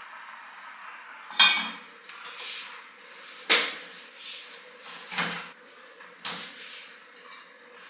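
Dishes being handled: a series of separate clinks and knocks of crockery and pans set down and moved about, the loudest about a second and a half and three and a half seconds in, the first ringing briefly.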